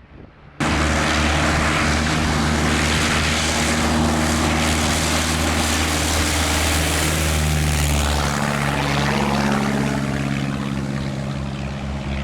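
Light propeller aircraft's piston engine running loud and steady close by. It comes in abruptly just after the start, and its note shifts about two-thirds of the way through.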